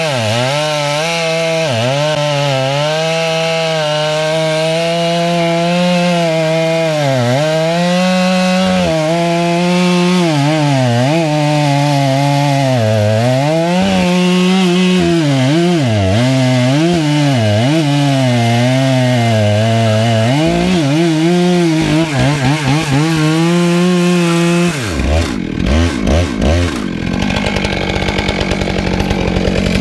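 Two-stroke chainsaw at full throttle ripping lengthwise through a large wood round. Its engine note dips and recovers again and again as it bogs in the cut. About 25 seconds in, the throttle is released and it drops to a rough idle.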